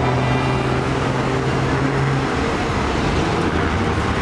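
Heavy road traffic: buses, trucks and cars running steadily past on a multi-lane road, with one large engine's low drone standing out for the first two seconds.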